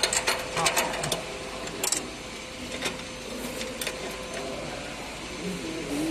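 Sharp metallic clicks and clinks of tools and fittings being handled on a packing machine's frame, bunched in the first two seconds and then scattered, over a steady faint hum.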